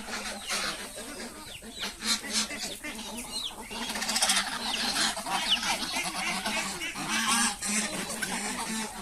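Farmyard poultry calling, with many short overlapping clucks and chirps, over a steady low hum.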